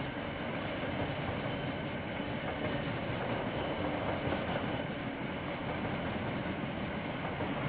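KiwiRail train rolling past, a steady rumble and clatter of wheels on the rails.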